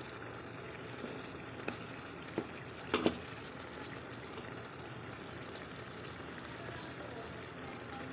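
Thick meat curry bubbling steadily in a pot as it cooks down. A few short sharp clicks stand out, the loudest about three seconds in.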